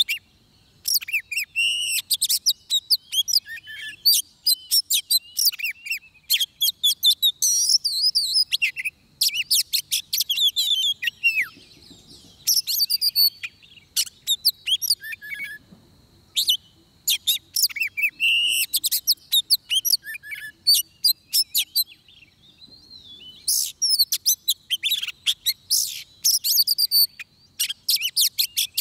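Oriental magpie-robin singing: bursts of varied, fast whistled phrases and rapid chattering notes, broken by short pauses.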